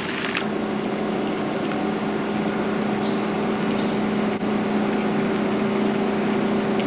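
A small engine or motor running steadily with a constant hum, over an even hiss.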